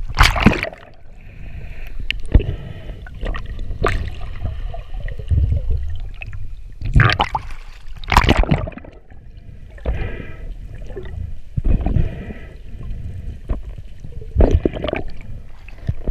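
Water sloshing and gurgling in irregular surges every second or two, over a low rumble.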